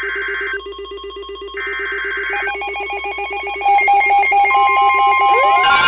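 Emergency Alert System SAME header data bursts: two harsh digital bursts about a second long, a second apart, over a rapidly pulsing electronic tone. From about two-thirds of the way through more tones join in, and just before the end a much louder tone starts.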